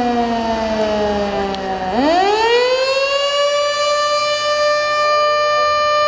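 Federal Signal Model 2 electromechanical fire sirens sounding a test, heard from inside a car: the tone slides down in pitch, then about two seconds in swoops back up and holds a steady high note. Near the end a second siren is faintly heard winding up toward the same pitch.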